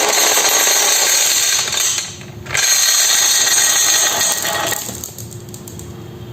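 Marbles rolling and rattling down a wooden marble run slope in a continuous clattering rumble. It dips briefly about two seconds in and fades to a quieter rattle near the end.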